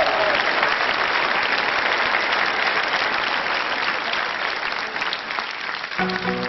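Studio audience applauding. Near the end the applause thins and an acoustic guitar starts playing the opening notes of a song.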